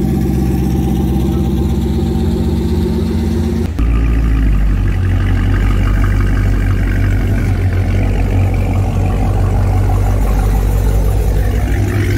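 Twin-turbocharged 2021 Ford Mustang GT's 5.0 V8 on E85 running as it rolls past at low speed. About four seconds in, after a cut, a Dodge Hellcat's supercharged 6.2 V8 with an upper pulley and cat delete idles with a deep, steady drone.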